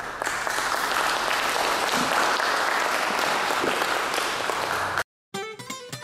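Audience applauding, a steady clatter of many hands that cuts off abruptly about five seconds in. Music starts near the end.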